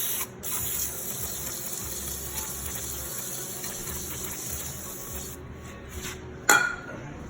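Aerosol can of brake cleaner spraying in a long steady hiss, with a few short puffs as it stops, while cleaning around the fuel tank's sending-unit lock ring. Near the end a single sharp knock sounds.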